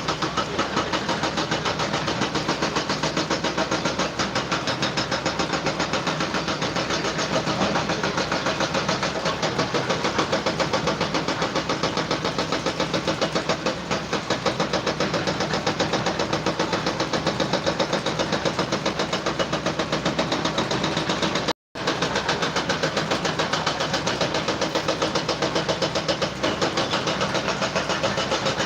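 An engine running steadily with a rapid, even pulsing. The sound cuts out abruptly for a moment about three-quarters of the way through, then carries on unchanged.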